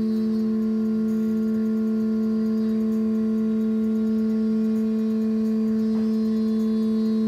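Fi Audio BTL 'UFO' series 18-inch subwoofer playing a steady sine test tone from a signal generator, driven at about 30 watts. It holds one unchanging pitch with overtones above it.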